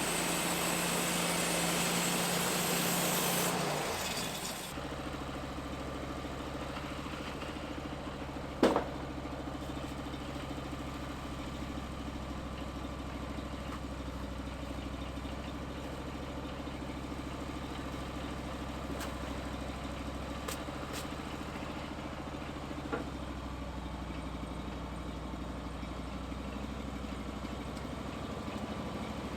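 An engine running steadily. It is louder and hissier for about the first four seconds, then settles to a quieter steady idle. A single sharp knock comes about nine seconds in, with a couple of faint clicks later.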